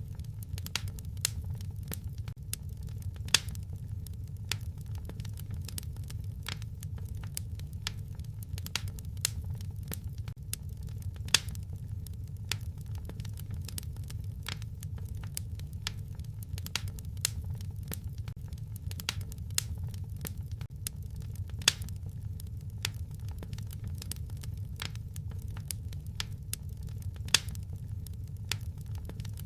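Wood fire crackling in a fireplace: a steady low rumble of burning with irregular sharp pops and snaps, a few much louder than the rest.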